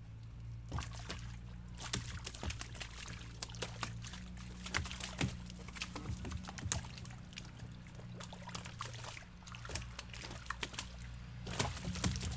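Water splashing and dripping as fish are worked out of a wet cast net and drop into the water-filled bottom of a small boat, with irregular wet slaps and knocks of flopping fish against the hull.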